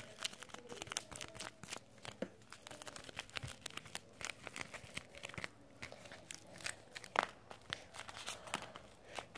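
Homemade paper squishy crinkling and crackling as it is squeezed and turned over in the hands, with one sharper crackle about seven seconds in.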